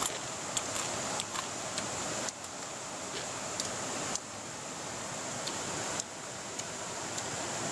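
Steady rushing outdoor background noise with a high hiss, and a few light clicks of chopsticks and a spoon against bowls and a metal pot.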